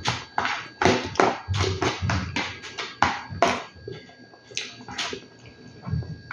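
A metal spoon scraping and clinking against a black pot as food is scooped from it: a dozen or so sharp taps, coming thicker in the first few seconds and sparser after.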